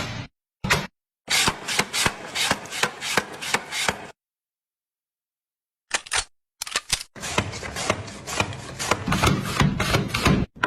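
Rapid clicking and knocking of a hand-worked kitchen gadget in use, in short bursts broken by sudden silent gaps.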